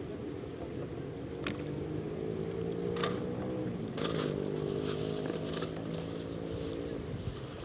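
A boat's engine running steadily, coming in about a second and a half in and fading near the end, with a few sharp clicks over it.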